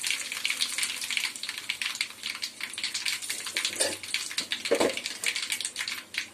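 Hot oil sizzling in a kadai with mustard seeds and urad dal tempering in it: a steady fizz with many small crackles. Two brief duller knocks come about four and five seconds in.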